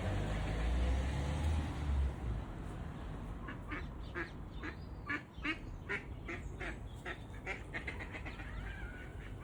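Duck quacking in a run of short, repeated calls, about two a second, growing quicker near the end. A low rumble fills the first two seconds before the quacking starts.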